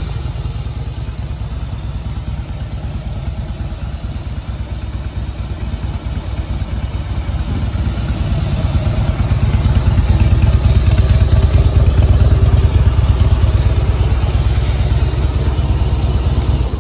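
A 2013 Harley-Davidson FLSTN Softail Deluxe's V-twin idles through aftermarket Screamin' Eagle mufflers with a steady, low, pulsing beat. It grows louder about halfway through.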